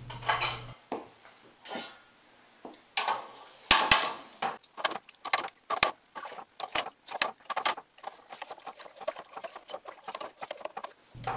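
A spoon stirring milk up and down in a pot after rennet is added, making irregular clinks and knocks against the pot, several a second, with a louder knock about four seconds in.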